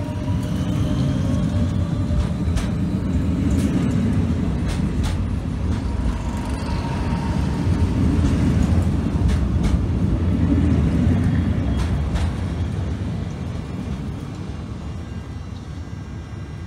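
Renfe Cercanías electric commuter train running past close by: a loud steady rumble of wheels on rails with scattered sharp clicks, growing to its loudest in the middle and fading as the last cars go by.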